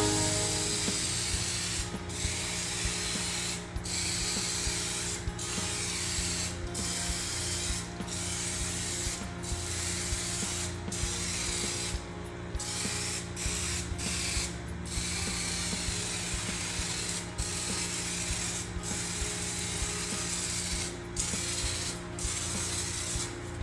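Scrubbing a stainless-steel baffle filter from an exhaust fan by hand, the scrubber rasping over the metal slats in strokes with a short break about every second and a half.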